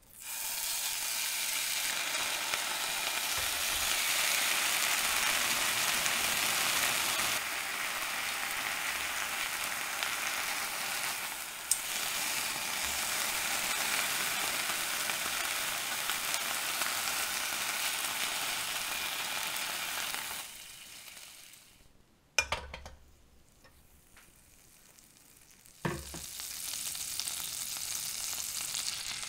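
Ham slices sizzling steadily in a hot nonstick frying pan. Near the two-thirds mark the sizzle fades out, broken by two sharp clicks. A softer sizzle then starts up as butter melts and foams in the pan.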